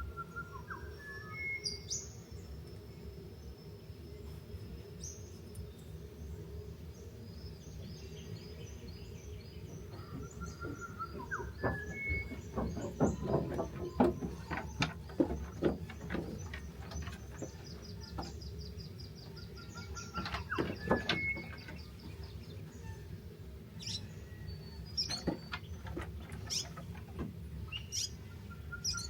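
Wild birds calling: short rising chirps repeated every several seconds and a long, thin, high trill. Under them runs a low steady rumble of outdoor background noise. Sharp taps or clicks come in clusters around the middle and again later, and are the loudest sounds.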